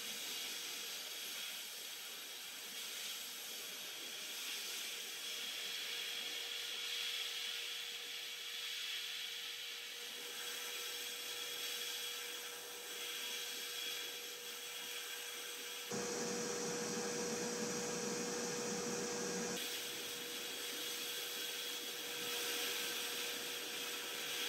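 Abrasive blasting in a sandblast cabinet: a blast gun with a ceramic nozzle sending a steady hiss of grit against a cast metal slicer part, with a faint steady hum beneath. About two-thirds of the way through it grows louder and fuller for a few seconds, then drops back.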